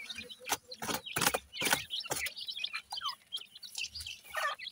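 Francolin chicks peeping with many short, high chirps, some gliding in pitch, mixed with sharp clicks and scratches from the chicks pecking and moving in grit.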